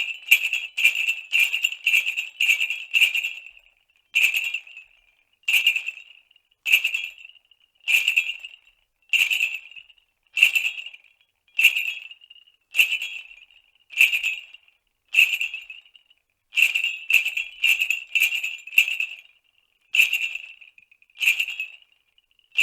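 Sleigh bells shaken in a steady rhythm, each shake a short jingle that dies away quickly. The shakes come about twice a second at first, then slow to about one a second after three seconds.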